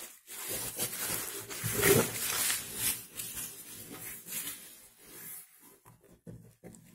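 Plastic bubble wrap crinkling and rustling as it is pulled aside in a cardboard box, loudest about two seconds in and dying down after about five seconds to a few small clicks.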